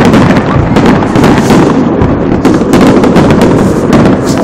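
Aerial fireworks shells bursting in rapid succession: loud, overlapping bangs several per second.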